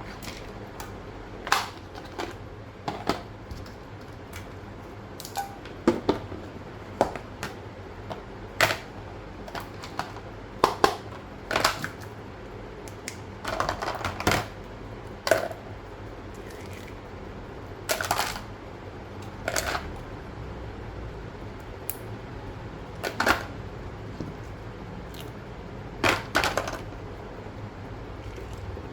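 Paper and small craft tools being handled on a table: short, sharp clicks, snips and brief rustles at irregular intervals, about one to two seconds apart, some in quick pairs.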